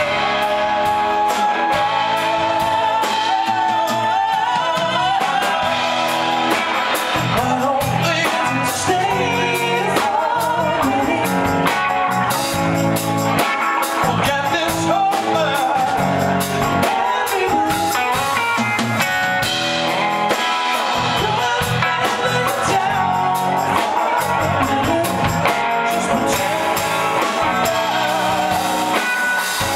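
Live rock band playing: singing over electric guitar and a drum kit.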